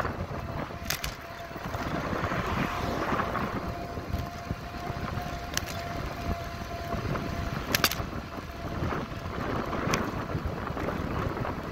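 Wind buffeting a handlebar-mounted phone's microphone with road rumble from a bicycle rolling over pavement, broken by a few sharp clicks as the bike goes over bumps.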